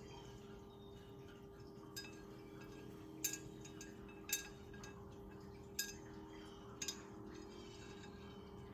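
Sharp metallic clinks of steel parts and tools being handled while a hydraulic cylinder piston is worked into place, about six separate clinks with two close together near the end, over a steady low hum.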